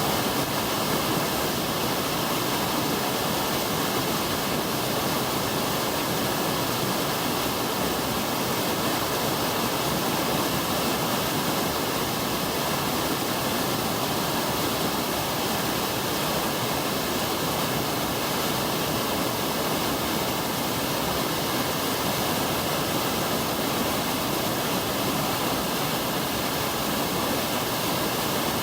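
Waterfall pouring into a mountain gorge: a steady, even rush of falling water with no breaks.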